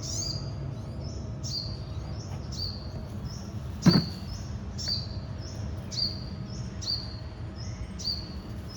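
A small bird chirping over and over, about two short high chirps a second, each sliding down in pitch, over a steady low background rumble. A single loud knock comes about four seconds in.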